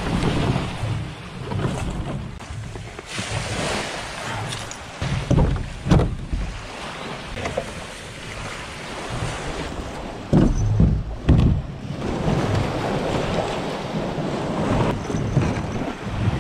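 Small waves washing onto a shingle shore, with wind buffeting the microphone. A few dull low thumps, around the middle and again about two-thirds in, come from the small plastic boat being handled and launched.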